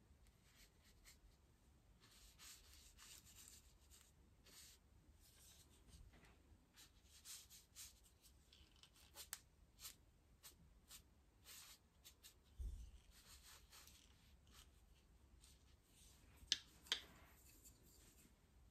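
Paintbrush brushing over sketchbook paper in repeated faint hissing strokes, with a dull thump midway and two sharp ticks close together near the end.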